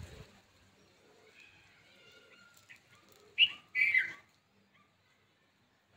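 A bird chirping: faint thin whistled notes, then two short, louder falling chirps about three and a half seconds in.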